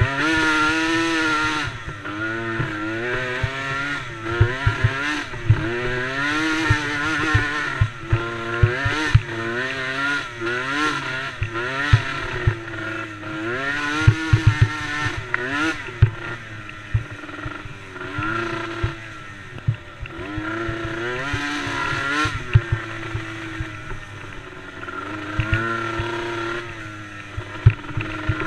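Small racing ATV engines, a DRR DRX90 among them, revving up and falling off again and again as the quads race, several engines overlapping at different pitches. Irregular low thumps run underneath.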